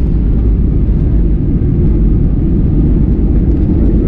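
Steady, loud, low rumble inside the cabin of a Boeing 737-800 on the ground after landing.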